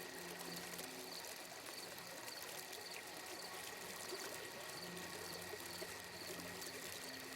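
Steady, gentle flow of fountain water, faint, in an ambient soundscape, with soft low sustained notes fading in and out and a faint high chirp repeating about twice a second.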